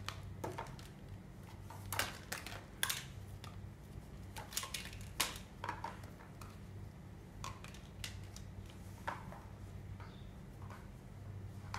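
Plastic toy dishes and play food clicking and clattering in scattered light knocks as they are picked up and set down, over a low steady hum.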